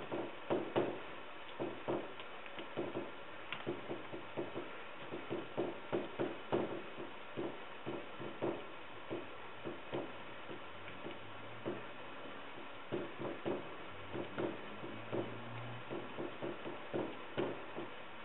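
Fiberglass laminating roller being rolled back and forth over resin-wet glass cloth to work out air bubbles. It makes a string of short, irregular clicks, roughly one or two a second.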